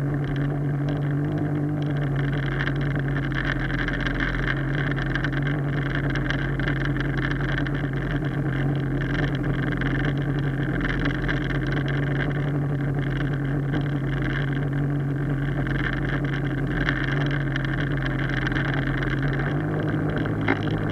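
Small Hangkai outboard motor running steadily, pushing an inflatable boat, with a sound the owner calls weird. A single sharp knock near the end.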